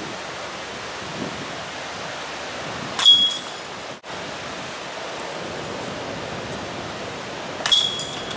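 Two putted discs striking the chains of a metal disc golf basket, each a sharp clash with a brief metallic ring, about three seconds in and again near the end, over a steady outdoor hiss.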